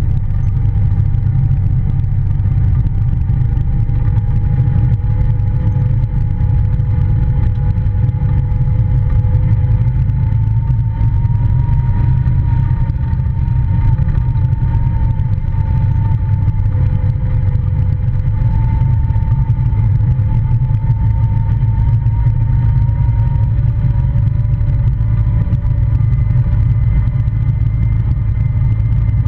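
Polaris Ranger side-by-side driving along steadily: a constant low engine drone with a whine above it that rises slowly in pitch, then wavers up and down as the speed changes.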